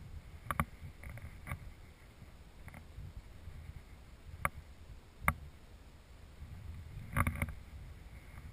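Muffled walking and handling noise picked up through a GoPro's waterproof housing as a hiker walks: a low rumble with scattered clicks and knocks from footsteps and gear.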